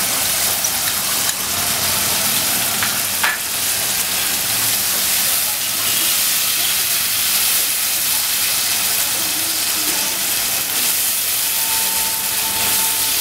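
Onion, ginger, garlic and green chillies frying in oil in a large non-stick frying pan, sizzling steadily as a soaked jaggery-and-vinegar mixture is poured in and stirred with a slotted spatula. Two light knocks come about one and three seconds in.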